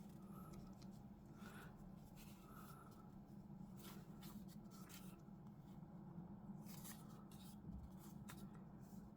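Faint, scattered rustles and light taps of paper as sheets of faux postage stamps are handled, over a low steady hum.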